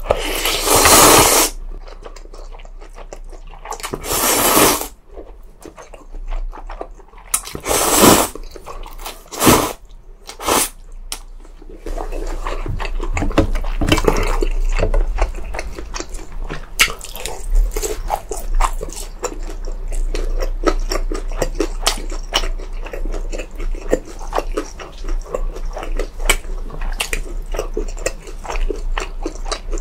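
Close-miked eating sounds: several loud slurps of noodles in the first ten seconds or so, then steady wet chewing with many small clicks and smacks.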